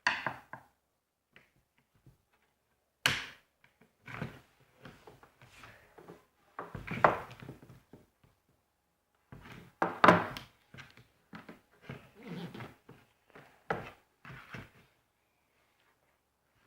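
Irregular knocks, thunks and clattering of tools and hands working on an electric drill being forced apart, with sharp hits about 3 seconds and 10 seconds in. The sounds stop a couple of seconds before the end.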